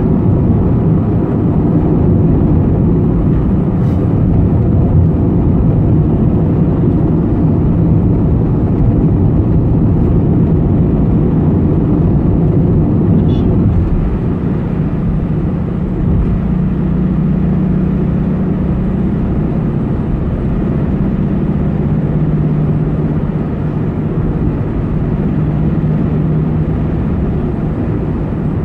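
Steady road and engine noise of a car driving at highway speed, heard from inside the cabin as a continuous low rumble. About halfway through, a steady low drone joins it.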